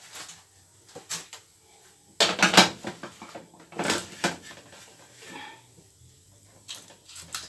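Aluminium foil crinkling and a metal roasting tray knocking as a foil-wrapped tray of fish is handled and the foil pulled open. The loudest rustle comes about two seconds in, a second one near four seconds, with light knocks and clicks around them.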